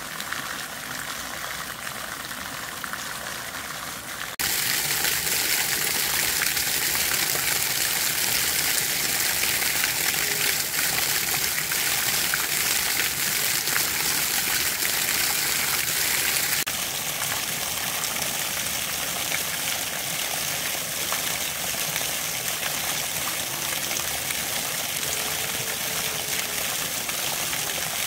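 Steady rush of flowing water from a small waterfall and stream. It gets louder about four seconds in and drops back somewhat after about seventeen seconds.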